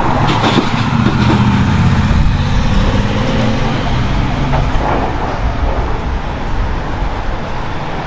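City street traffic noise: a motor vehicle's engine running close by, a low hum that fades after about five seconds, over a steady wash of road noise.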